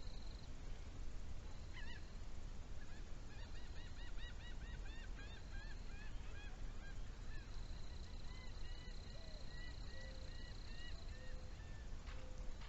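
Birds calling in a rapid series of short, repeated honking notes, then slower spaced calls, over a steady low rumble.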